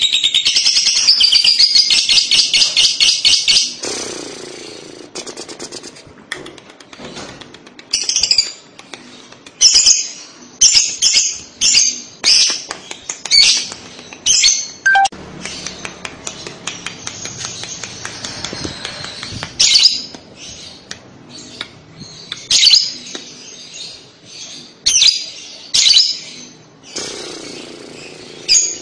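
Fischer's lovebird calling: a loud, very fast trill of shrill notes (the 'ngekek' song) for the first few seconds, breaking off into a string of separate sharp, shrill chirps about two a second with short pauses.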